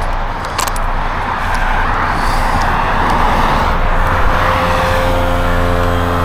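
A motor vehicle running, with steady road and engine noise; from about four or five seconds in, a steady engine hum comes up through it.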